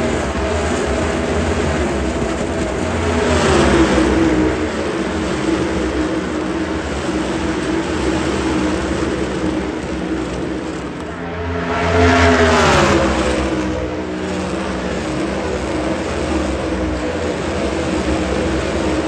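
NASCAR Cup Series V8 stock cars running past in a line, a steady engine drone. The pitch drops as cars go by about three and a half seconds in and again about twelve seconds in, the second pass the loudest.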